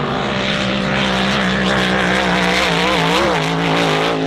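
Supercharged V8 racing hydroplane running flat out, a loud, steady engine note that starts to waver up and down in pitch about three seconds in.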